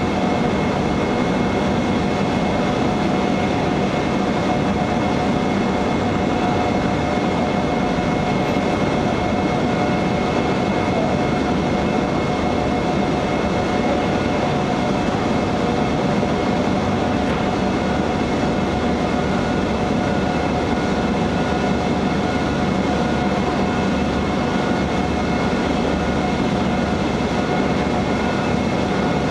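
Machinery of a horizontal powder-coating line running: a steady rumbling noise with several constant whining tones held through it.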